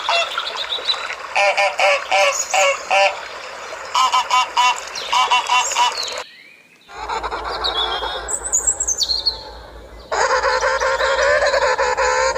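Farm waterfowl honking in quick runs of about four calls at a time. After a short break, high bird chirps with falling notes, then a loud sustained many-voiced call from about ten seconds in.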